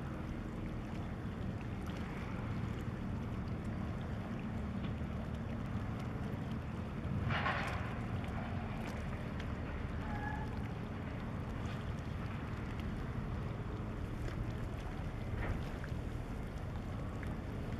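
Wind buffeting the microphone as a steady low rumble, with a brief hiss about seven seconds in and a short high chirp about ten seconds in.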